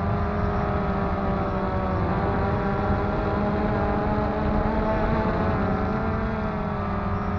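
DJI Phantom 2 quadcopter's motors and propellers whining steadily, heard from a camera fixed to the airframe, the pitch drifting slightly up and down as the motor speeds change in flight, over a low rumble of wind.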